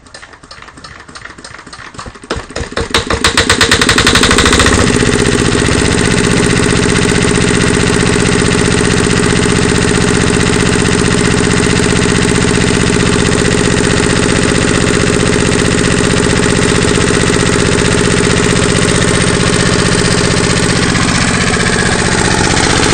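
Yanmar NT65K water-cooled four-stroke horizontal diesel engine being hand-cranked with the decompression lever held: rhythmic strokes quicken and grow louder, then about four seconds in the lever is dropped and it fires. It then settles into a loud, steady running beat.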